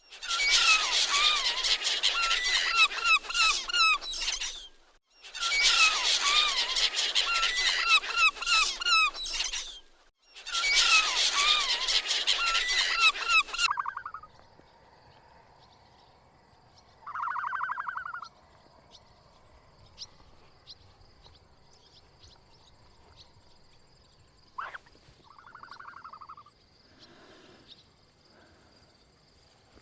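Many birds calling over one another, a dense chatter of short chirps, in three loud stretches each a few seconds long. After that it drops to a quiet background with a few short, isolated animal calls.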